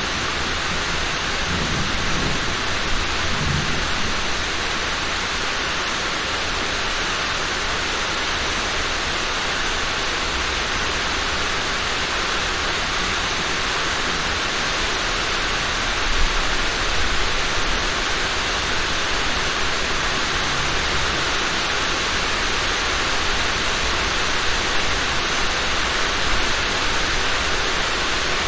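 Steady rain hiss with low rolls of thunder, the strongest a couple of seconds in and again about halfway through.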